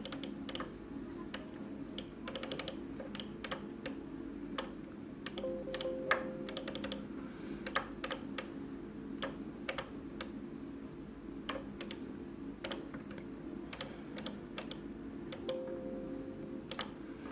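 Irregular clicks of a computer mouse and keyboard, scattered singly and in short runs, over a steady low hum.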